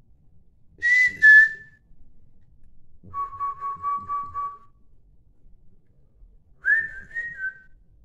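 A person whistling three short phrases: a two-note whistle about a second in, then a run of about six quick repeated notes, then near the end a whistle that rises and then falls.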